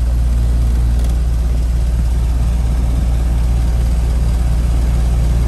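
Tempstar heat pump's outdoor condensing unit running: a steady low hum from the compressor and condenser fan.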